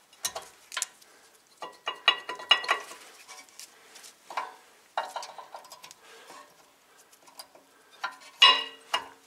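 Rear brake pads being fitted into the caliper bracket's hardware clips on a Toyota Corolla rear disc brake: irregular metallic clicks and clinks as the pads' steel backing plates knock against the bracket and clips. The loudest run of clinks comes near the end.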